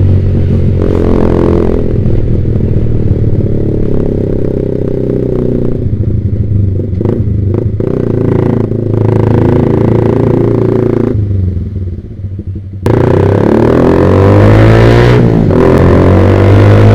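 Yamaha Vixion's single-cylinder engine through a Proliner TR1 R aftermarket exhaust, heard while riding. It runs steadily, then about eleven seconds in the throttle closes and the sound falls away. Near thirteen seconds it picks up sharply and revs upward, with a short break about fifteen seconds in like a gear change.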